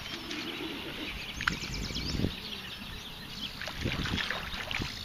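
Birds chirping and singing, with a few low thumps and water sloshing as a large channel catfish is let go by hand into shallow water at the bank.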